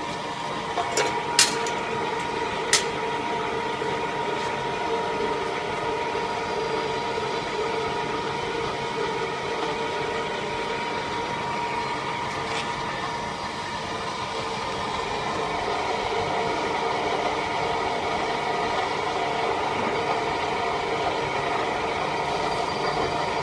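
Center-pivot irrigation drive gearbox with a 50:1 reduction running on a test bench, turned by an electric motor: a steady mechanical hum with a held whine. Three sharp clicks come in the first three seconds.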